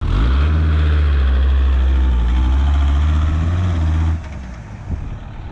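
Volkswagen LT van's engine running loud and steady with a slightly wavering pitch. It drops away suddenly about four seconds in, leaving a quieter, rougher rumble.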